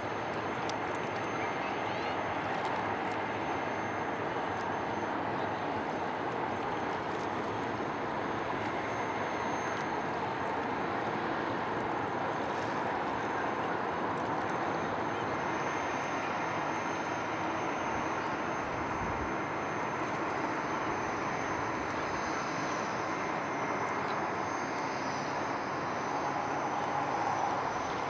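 Steady rush of the Tennessee River's flowing water, with a thin high steady tone running over it.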